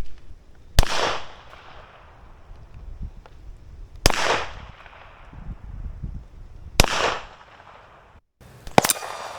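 Three 9mm pistol shots from a Canik SFX Rival, picked up by a microphone downrange about 150 yards from the gun. They come about three seconds apart, each a sharp report followed by a long echo. Near the end, after a brief dropout, there is one more sharp crack.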